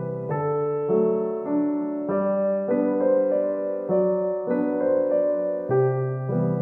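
Background piano music, a gentle melody with a new note or chord about every half second.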